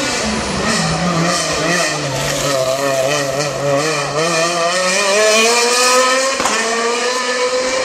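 Rally car engine taken through a bend at full effort, its revs wavering up and down with throttle and gear changes for the first few seconds, then rising steadily as the car accelerates away. A sharp crack cuts in once, a little past six seconds.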